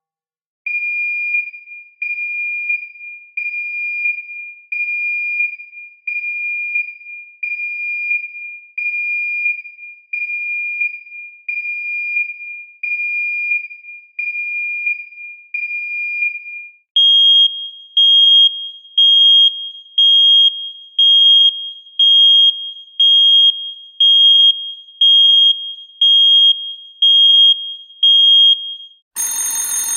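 Electronic alarm beeper sounding a steady single-pitch beep about every 1.3 seconds, then, about halfway through, switching to a higher, louder beep about once a second. Just before the end an alarm bell starts ringing.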